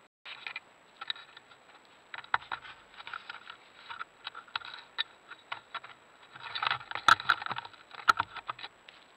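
An animal handling the trail camera up close: irregular scratching, tapping and clicking on the camera's case, with a louder flurry about seven seconds in.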